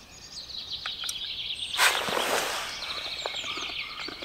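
Songbirds singing with quick, rattling trills, and about two seconds in a sharp, brief swish that fades over a second: a float rod being cast.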